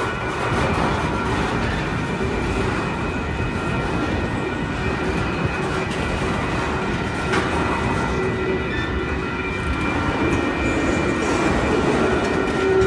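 Freight cars of a slow-moving Union Pacific train rolling past, a steady rumble of wheels on rail. A thin steady squeal rides over it, and a lower squeal tone grows louder near the end.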